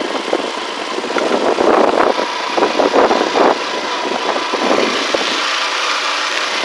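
Motorcycle engine running while riding, with wind rushing over the microphone in uneven gusts.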